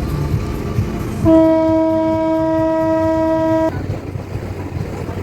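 A horn sounds one long, steady blast of about two and a half seconds that cuts off sharply, over a constant low rumble.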